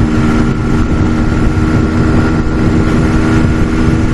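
Brixton Felsberg 125's single-cylinder four-stroke engine running at a steady cruising speed under way, with wind rushing over the microphone.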